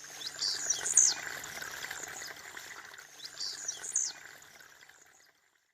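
Blue-black grassquit (tiziu) singing its short, sharp song twice, about three seconds apart, over a steady high-pitched insect drone. The sound cuts off suddenly near the end.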